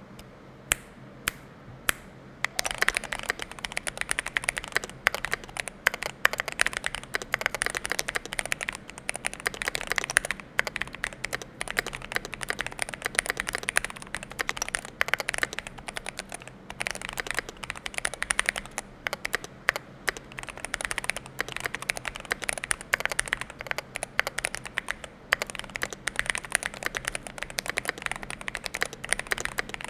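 Keychron Q1 Pro mechanical keyboard with Gateron Baby Kangaroo V2 switches, PBT keycaps, tape mod, acoustic mod kit and lubed stabilizers being typed on. A few single keystrokes, then fast continuous typing from about two and a half seconds in.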